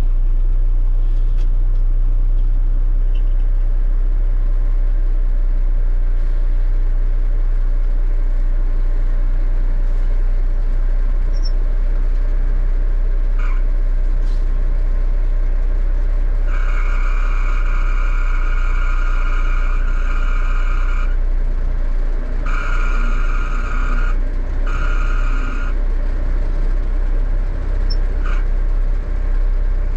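1974 Kenworth log truck's diesel engine running steadily at low speed as the truck is manoeuvred to turn around. In the second half a high, steady squeal comes three times, the first about four seconds long and the other two shorter.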